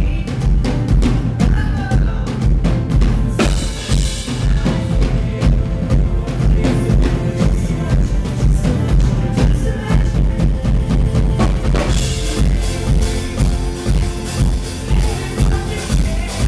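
Live pop concert music heard from within the crowd: a band playing a steady, loud drum-kit beat of about two beats a second over heavy bass, with the cymbals and high end getting brighter about three-quarters of the way through.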